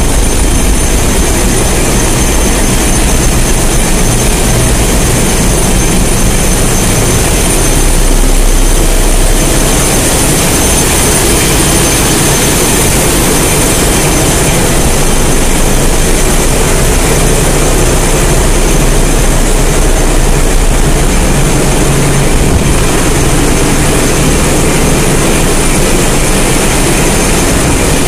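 Engine-room machinery running: a loud, steady din with a deep rumble and steady high-pitched whining tones above it.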